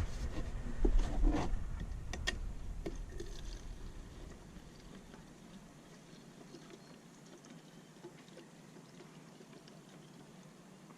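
Gasoline being poured into a plastic fuel container, with a few sharp clicks and handling knocks in the first seconds, then a faint pouring hiss that dies away.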